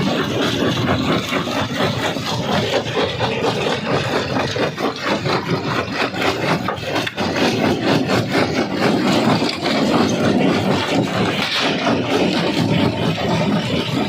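Jaw crusher crushing rock: a continuous dense crunching and grinding with many small rapid knocks and rattles.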